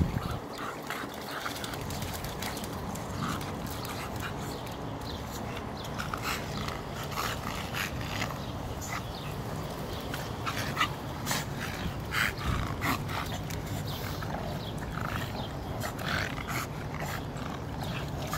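Micro bully dogs making short, scattered dog noises as they wrestle in play.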